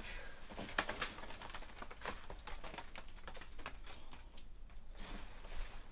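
Irregular crackling and snapping of leaves and twigs in a breadfruit tree as a climber moves among the branches picking fruit, with a few sharper snaps about one and two seconds in.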